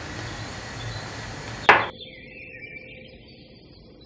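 A single sharp knock about two seconds in, the hand mixer's metal beaters striking the glass mixing bowl, over a low steady hiss; after the knock the sound drops to very faint.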